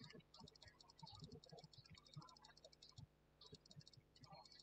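Faint, fast clicking in short runs from a computer input device, with soft low knocks, over a faint steady low hum.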